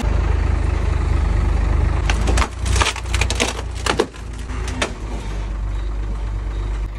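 Concrete mixer truck's engine running with a deep, steady rumble. Between about two and five seconds in comes a burst of sharp cracking and crunching from the wooden boards and gravel under its rear wheels.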